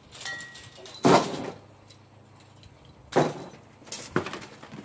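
A cardboard shipping box and its packing being handled: a few short, sharp scrapes and knocks. The loudest comes about a second in, another about three seconds in, and a smaller one just after four seconds.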